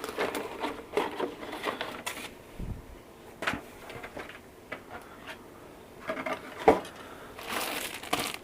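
Cardboard model-kit box being opened and handled: scattered scrapes and knocks of cardboard, with one sharp knock about two-thirds of the way through. Near the end, plastic parts bags crinkle.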